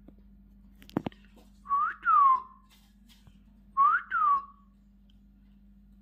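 Two wolf-whistles about two seconds apart, each a quick rising note followed by a falling one. A pair of sharp clicks comes shortly before the first.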